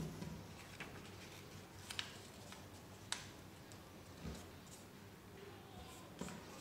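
Quiet paper folding by hand: scattered crinkles and a few sharp crisp clicks as a sheet of paper is creased, with a couple of soft low thumps.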